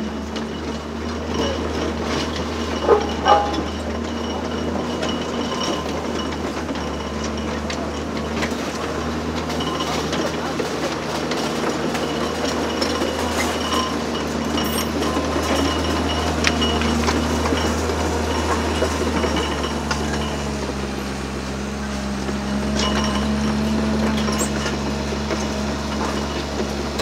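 Heavy diesel construction machinery, an excavator's engine, running steadily, with scattered metallic clinks and knocks, two sharp knocks about three seconds in. The engine note changes about twenty seconds in.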